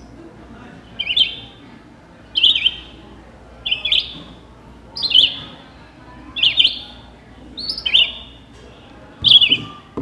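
Recorded song of a red-eyed vireo played through a small handheld speaker held up to a microphone. It gives seven short, quick up-and-down phrases, about one every second and a half, the bird's 'here I am, where are you?' pattern.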